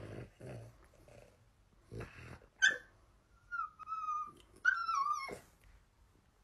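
A dog vocalising: a few low grumbling sounds, then a short sharp yelp and two high whines, the last one falling in pitch.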